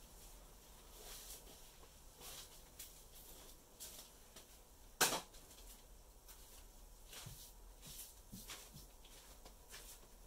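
Quiet workshop room tone with faint scattered ticks, and one sharp knock about five seconds in.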